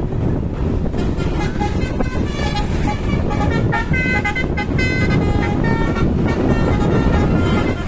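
Bus's Basuri 'telolet' multi-tone horn playing a tune of short notes that step up and down in pitch, over a steady low rumble of engine and road noise.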